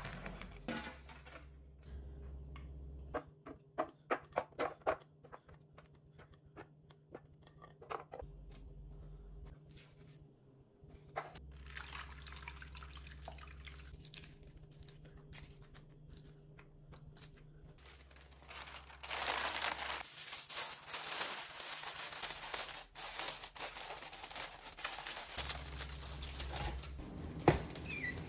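Kitchen handling sounds: a run of light taps and knocks, then, from about two-thirds through, a long stretch of parchment paper and aluminium foil crinkling and tearing as a roasting pan is covered and sealed.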